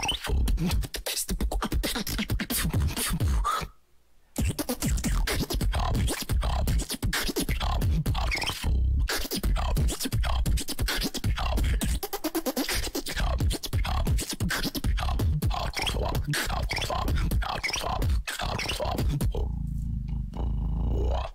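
Solo beatbox routine into a handheld microphone: fast mouth-made kick, snare and click sounds over heavy deep bass, with a brief break about four seconds in.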